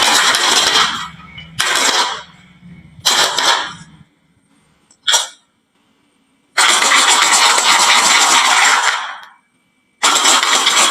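Many marbles clattering and rattling down a wooden marble run in several loud bursts, broken by abrupt dead silences, with a single sharp clack about five seconds in.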